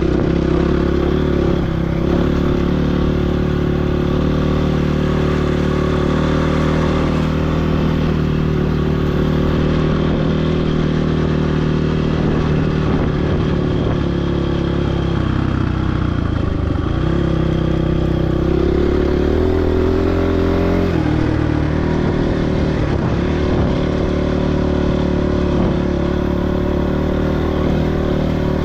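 Motorcycle engine running while riding a trail, its pitch rising and falling with the throttle, with a few brief drops in revs about halfway through and again a few seconds later.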